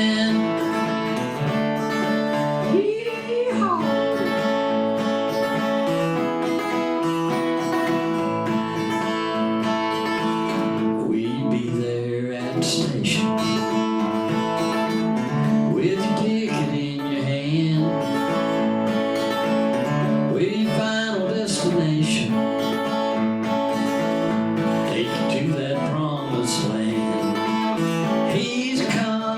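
Acoustic guitar playing a bluegrass gospel song live, a passage without lyrics with steady picked and strummed notes.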